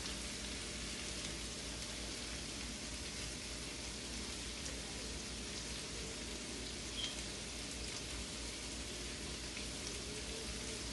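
Onion, bell pepper, squash and garlic sautéing in a pot, sizzling steadily and quietly. A faint tick about seven seconds in.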